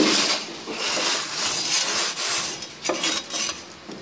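Scraping of metal on a hard surface, in uneven strokes, loudest at the start and again about a second in: a pizza peel sliding under the finished pizza on the wood-fired oven floor to lift it out.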